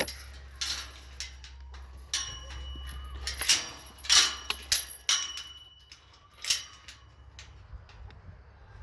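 Scattered knocks and clatters, about half a dozen sharp sounds spread over several seconds, with a faint low hum that stops about three and a half seconds in.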